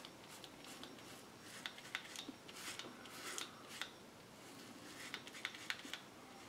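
Faint scratchy crackle of a Gillette Fusion five-blade cartridge razor cutting through lathered stubble in short strokes, in two spells. It is the audible feedback of the blades cutting whiskers.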